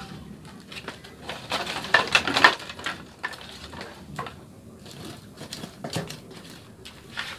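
Firewood and kindling being handled and pushed into a wood-fired hearth: scattered knocks and clicks, with a louder stretch of rustling and clattering about two seconds in.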